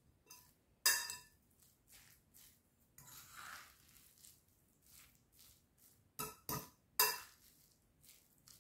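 Metal spoon stirring diced potato, carrot and shredded chicken in a glass bowl: soft scraping and squelching of the food, with sharp ringing clinks of the spoon against the glass, one about a second in and three in quick succession near the end.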